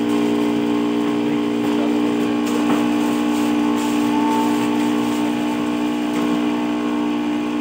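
A steady, even mechanical hum with several pitches held together, unchanging throughout.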